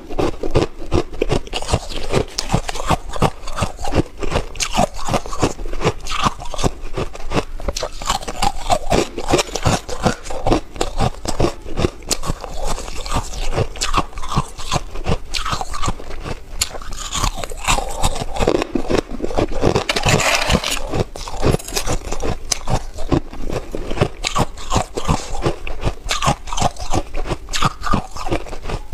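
Close-miked biting and chewing of soft, frosty white ice, a dense run of crisp crunching crackles with no pause, briefly louder and hissier about two-thirds of the way through.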